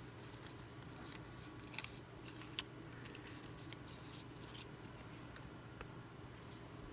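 Faint clicks and light rustling of fingers handling a tiny Re-Ment miniature: a small plastic tray of toy cakes and its plastic wrapper. A few sharper ticks stand out, the clearest about two and a half seconds in.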